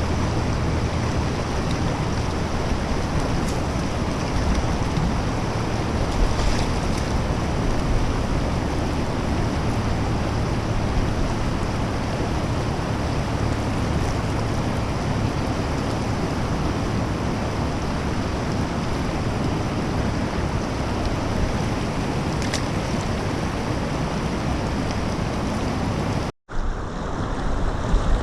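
Steady rush of fast-flowing creek water. It cuts out for an instant near the end.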